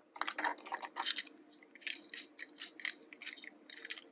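Small plastic toys being handled: a toy dump truck and train car knocking and clicking together, many light irregular clicks and rattles.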